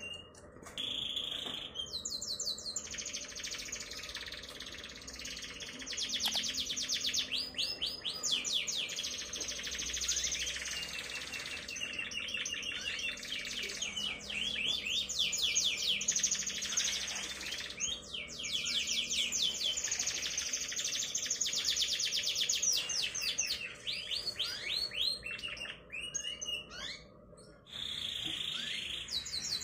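Young domestic canary, about three months old, singing a long, nearly unbroken song of fast rolling trills and twitters, breaking off briefly near the end.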